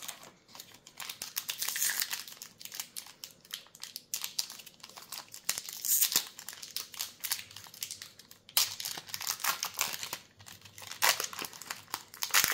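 Foil wrapper of a Magic: The Gathering collector booster pack crinkling as it is torn open and handled, a dense run of crackles with a couple of short lulls.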